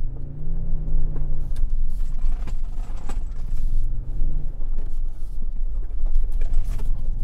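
2023 Toyota Sequoia's twin-turbo V6 hybrid engine revving up and easing off twice under hard throttle in two-wheel drive with traction control off. The rear tyres spin in mud, with scattered knocks and clatter from flung dirt.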